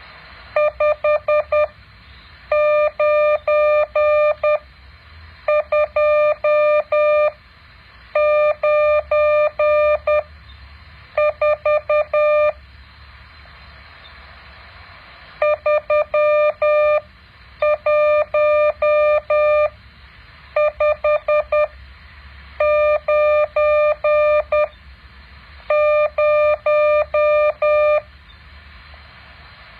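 Morse code practice tone: a single steady-pitched beep keyed in dots and dashes, sent in short groups with about a second's pause between them and a longer pause near the middle. A faint steady hum and hiss lies underneath.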